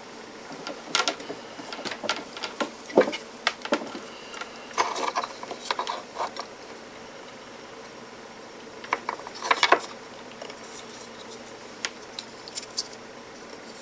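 Small clicks, taps and knocks of a multimeter and its test probes being handled against the pack's loose NiCd cells, scattered through the first six seconds with a short cluster about nine seconds in and a few light ticks near the end.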